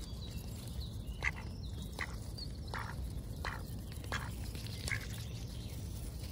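Mallard ducks feeding right at the microphone: six short, sharp clicks and snaps, about one every 0.7 s, over a steady low rumble.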